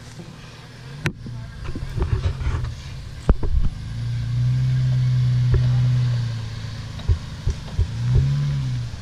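Jeep Wrangler engine revving up under load as it crawls over a trail, held strongly for a couple of seconds, easing off about six and a half seconds in, then revving briefly again near the end. A few sharp knocks come in the first few seconds.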